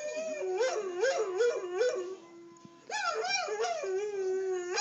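A dog howling from a video played through a laptop's speakers: long wavering howls whose pitch rises and falls, broken off briefly about two seconds in.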